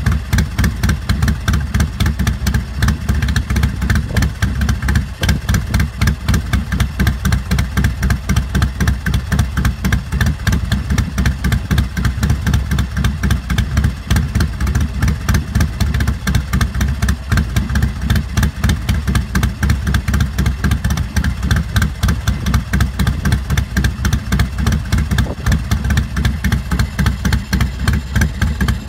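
A 2007 American Ironhorse Lone Star Chopper's carbureted 111-cubic-inch (1,820 cc) S&S V-twin idles steadily through its 2-into-1 exhaust. Its beat is a rapid, even pulsing.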